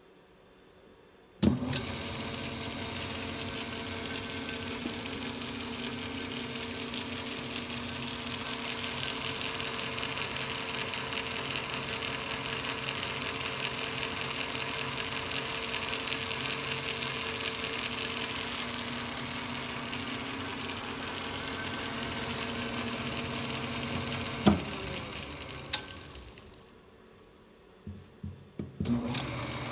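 1947 Atlas 12"x36" metal lathe switched on about a second and a half in, its motor, belt drive and gear train running with a steady hum and whir while the gear train is being tested. About 24 seconds in it is switched off with a click and coasts down to a stop; a few knocks follow near the end and it starts running again.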